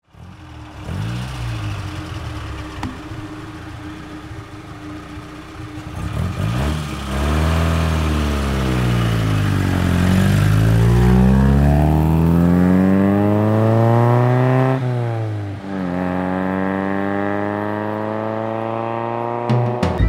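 Coventry Climax four-cylinder engine of a Lotus Elite Type 14 Super 95 under way: quieter at first, then the revs climb and fall as the car drives hard, with a sharp drop about three-quarters of the way through, as at a gear change, before the revs rise again.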